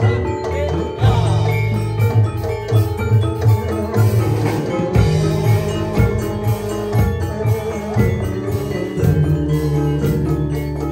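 Live Javanese gamelan music: bronze-keyed mallet instruments ring out a repeating melody over a steady, driving drum beat, played as dance accompaniment.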